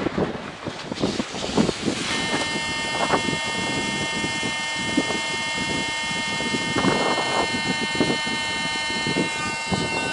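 An electric air pump switches on about two seconds in and runs with a steady whine, pumping air through a hose into an inflatable. Before it starts there are scattered knocks and rustling.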